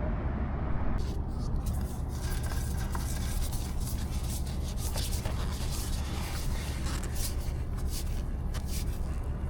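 Spin-on oil filter being screwed on by hand: irregular rubbing and scraping of the hand on the filter canister with small clicks, over a steady low hum.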